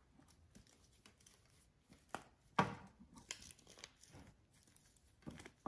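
Moss rustling and tearing as it is pulled apart and bundled by hand onto a wreath frame, with a few sharper crackles in the middle.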